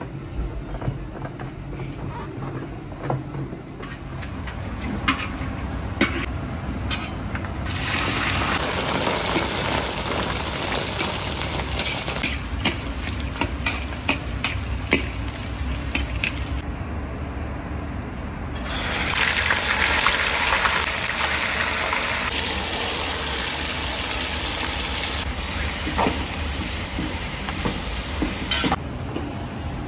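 Chunks of meat frying in hot oil in a kazan cauldron, a loud sizzle with scrapes and clicks of a metal ladle stirring. The sizzle sets in about a quarter of the way in, thins briefly past the middle, and falls off just before the end; the opening seconds are quieter, with scattered clicks.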